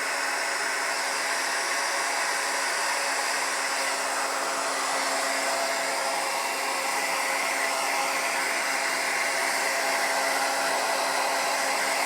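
Handheld hair dryer running steadily on medium: an even rushing blow with a steady motor hum underneath.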